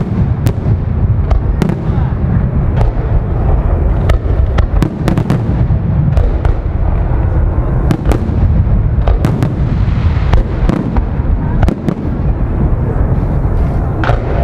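Aerial firework shells bursting in rapid succession: a continuous deep booming rumble with many sharp bangs layered over it throughout.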